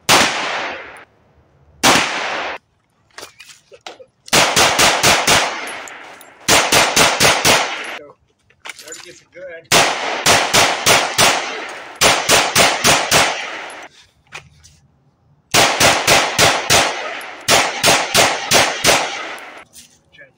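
A 9mm semi-automatic pistol fired: two single shots, then strings of about six or seven shots each in quick succession, roughly four or five shots a second, with short pauses between strings.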